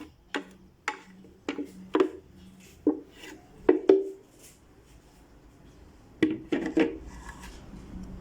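Irregular hard knocks and clinks on the electric grinder's jar, each with a short ringing tone, as freshly ground costus root powder is knocked and scraped out of it. There are about ten knocks, most in the first four seconds and a close group around six seconds in, with faint scraping between.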